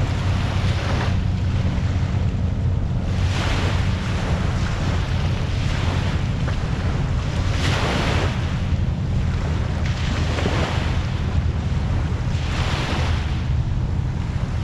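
Waves washing up on a beach, swelling and falling away every two to three seconds, over a steady low rumble of wind on the microphone.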